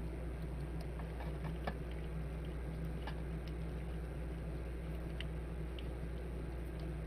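Scattered light clicks and taps from fitting a replacement voltage regulator into a circuit board by hand, over a steady low hum.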